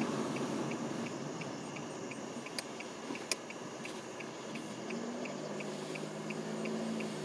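A car's turn signal ticking evenly, about three ticks a second, over the low cabin and road noise of a car slowing almost to a stop to turn; two sharper clicks come a little before the middle.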